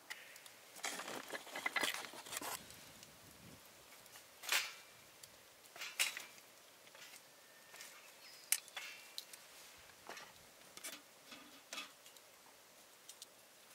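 Irregular light clinks, ticks and rustles of small objects being handled, with a few sharper clicks spread through.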